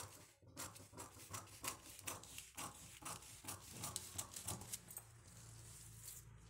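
Scissors snipping through a newspaper pattern in quick, even strokes, about four or five snips a second, stopping about five seconds in.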